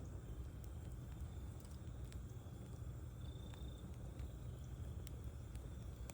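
Wood campfire burning: scattered sharp crackles and pops over a steady low rumble.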